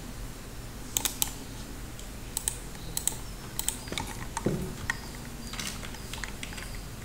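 Computer keyboard keys clicking in short irregular taps, many in quick pairs, with a denser run of keystrokes near the end, over a faint steady hum.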